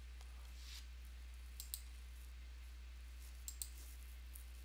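A few faint, sharp computer mouse and keyboard clicks, two quick pairs about one and a half and three and a half seconds in, as a fillet radius of 1 mm is entered, over a steady low electrical hum.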